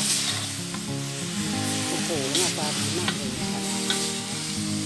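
Fish, chillies and basil leaves sizzling in a hot wok while a metal spatula stirs and scrapes them, with sharp scrapes against the pan about every half second to a second. Background music with long held notes plays underneath.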